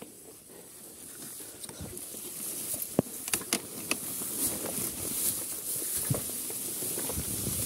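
Tall grass rustling and swishing against a dirt bike and rider as they push slowly through it, growing louder as the bike moves in, with scattered clicks and knocks from the bike.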